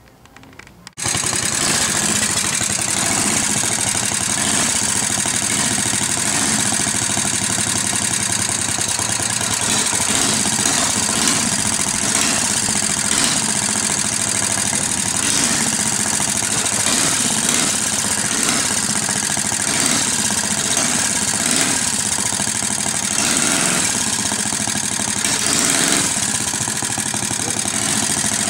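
Small engine of a homemade motorized bicycle running steadily, coming in abruptly about a second in.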